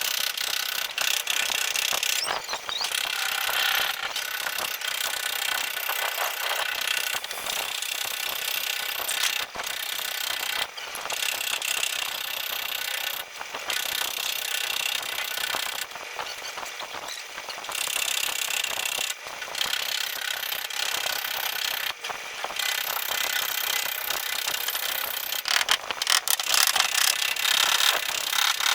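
Body-repair tool rasping and scraping against a car body panel, working in long strokes broken by short pauses every few seconds.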